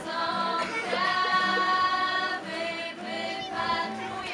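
A group of voices singing a song over backing music, with long held notes.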